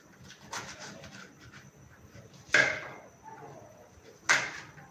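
Kitchen knife chopping leafy greens on a ceramic plate: a few soft cutting taps, then two louder sharp knocks of the blade against the plate, a little under two seconds apart.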